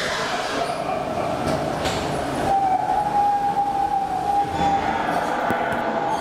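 Ghost-train car rolling along its floor rail, a steady rumble of wheels on the track. A high steady tone joins it from about two and a half seconds in until nearly five seconds.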